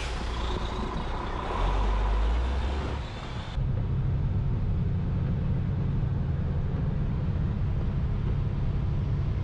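Steady road noise and engine drone heard from inside a moving car on a wet highway. About three and a half seconds in, the sound changes abruptly to a lower, steadier hum with less hiss.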